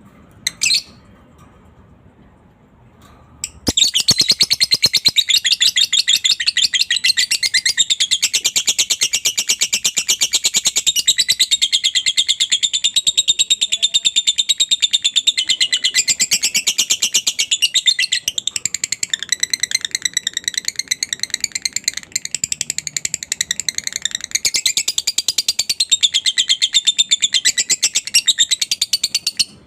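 Lovebird ngekek: a long, rapid chattering trill that keeps going without a break for about 25 seconds, preceded by a single short chirp just under a second in.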